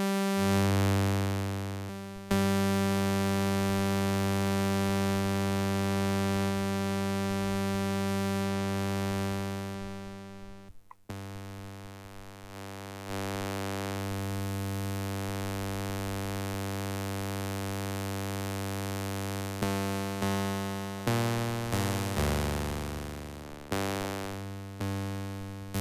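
Unfiltered Audio LION software synthesizer sounding a held note from two sawtooth oscillators, one slightly detuned. The tone changes as its mixer is switched from equal crossfade to ring modulation partway through, with a short dropout about eleven seconds in. Near the end it plays a run of short repeated notes, each fading out, some at different pitches.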